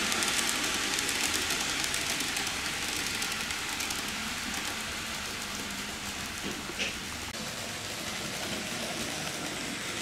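TOMIX N-gauge C57 model steam locomotive and its coaches running on the layout track: a steady rattling hiss of small wheels over the rails, fading as the train goes into the tunnel. A brief sharp sound about seven seconds in.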